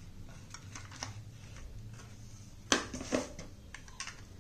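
Handling noises from taking a diecast metal toy car out of its cardboard box: scattered light clicks and rustling, with two sharp knocks a little under three seconds in.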